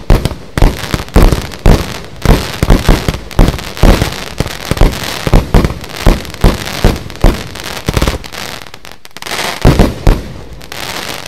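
Lesli Exploding Eagle fireworks showbox (a multi-shot cake) firing: a rapid string of sharp bangs, about two or three a second, over continuous crackling from the bursting stars. Near the end a tight cluster of heavier bangs, then a trailing crackle.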